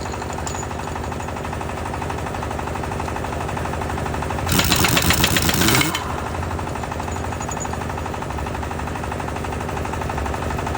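Pneumatic impact wrench rattling on a bus wheel nut in one burst of rapid hammering, about a second and a half long, near the middle. Under it runs a steady machine drone.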